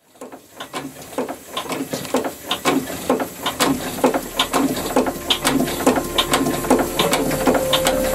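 Open-crank marine steam engine of a canal steam boat running, an even, rapid mechanical clatter of rods and valve gear over steam hiss. It fades in from silence over the first few seconds.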